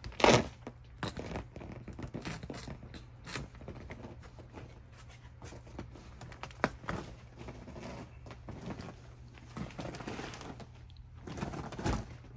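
Mattress pillow-top layer being pulled back by hand off its tufts and foam: rustling of fabric and foam with irregular clicks and knocks, the loudest a sharp knock just after the start.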